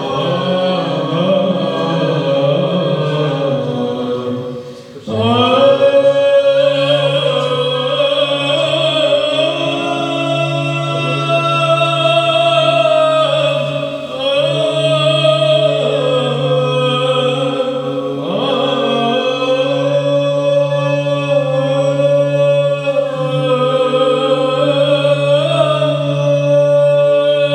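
Small group of men chanting Byzantine-style Orthodox liturgical chant a cappella: a moving melody sung over a steady, held low drone note (the ison). The singing breaks off briefly about five seconds in, then resumes.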